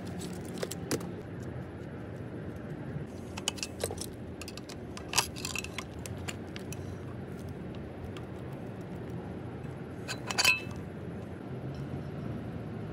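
Scattered sharp clicks and clinks of metal parts and a screwdriver as the electric saw's metal handle and motor housing are worked on and screwed back together; the loudest clink, about ten seconds in, rings briefly. A steady faint background hum underlies it.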